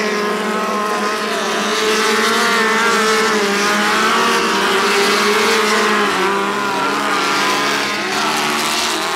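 Several small race cars' engines running hard together on a dirt track, their pitches rising and falling against each other as the cars accelerate and ease off through the turns.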